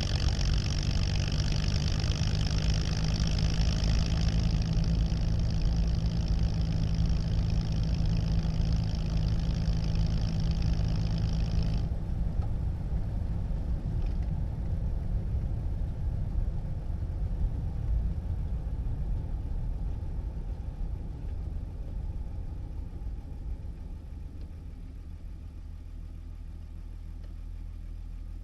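Cabin sound of a 1937 Plymouth's flathead six-cylinder engine running on the move. About twelve seconds in a high hiss stops suddenly, and over the last several seconds the sound eases down to a steady, quieter idle.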